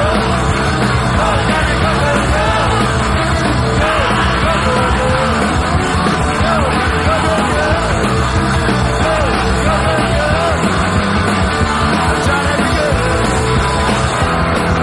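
Loud rock music with a singing voice.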